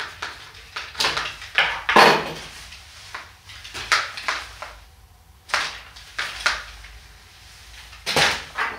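Handling noises: a string of uneven knocks and clicks, about eight of them, as a small metal hand pump is picked up and turned over.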